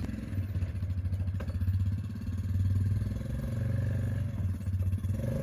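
Quad (ATV) engine running at low revs, a steady, evenly pulsing throb that swells slightly in the middle.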